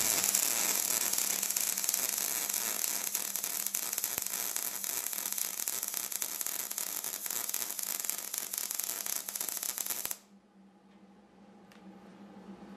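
MIG welding arc crackling steadily as a horizontal bead is laid. It cuts off suddenly about ten seconds in when the arc stops, leaving a faint steady hum.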